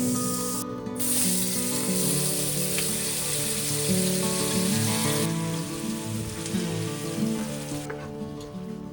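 Food sizzling as it fries in a hot pan, over background music. The sizzle drops away about five seconds in, leaving mostly the music.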